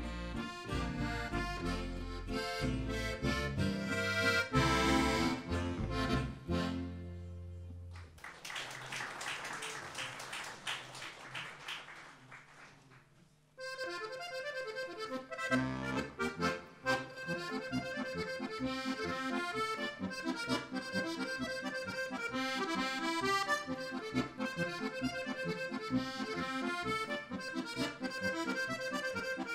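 Diatonic button accordion (Slovenian frajtonarica) playing lively Oberkrainer folk music with a guitar and double bass backing. About eight seconds in, the bass drops out and the accordion plays alone, fading almost to nothing. It starts again at about fourteen seconds, with the bass rejoining a couple of seconds later.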